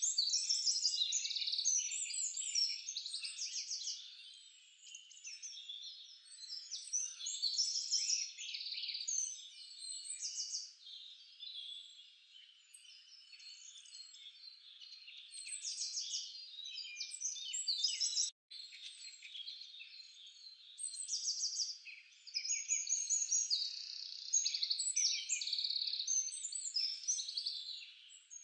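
Chorus of small frogs and birds calling: rapid high trills and chirps that swell and fade in waves, with a brief cutout about two-thirds of the way through. The pestle working in the mortar is not heard.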